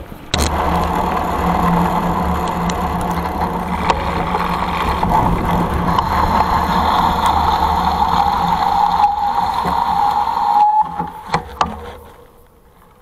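Knobby Schwalbe Black Jack 26-inch mountain-bike tyre rolling fast on a hard-packed dirt trail: a loud, steady tread hum that slides slowly lower in pitch. The hum dies away about eleven seconds in, followed by two sharp knocks.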